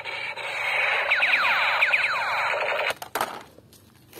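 Battery-powered toy sniper rifle's electronic firing sound effect: a steady buzzing hiss with several quick falling laser-like zaps in the middle, cutting off about three seconds in, followed by a couple of clicks.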